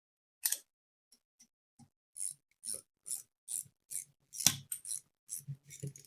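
A ratchet or spanner being worked on an engine crankcase bolt: a single click, then a run of short, scratchy ratcheting strokes about two a second as the bolt is tightened.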